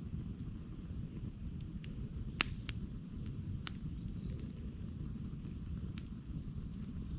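Campfire burning: a steady low rumble of flames with scattered sharp crackles and pops of the burning wood, the loudest pop about two and a half seconds in.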